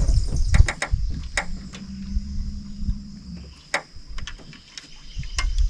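Scattered knocks, taps and low thumps in a small fishing boat as a freshly caught bluegill is handled and unhooked, busiest in the first second, with a faint low hum through the middle.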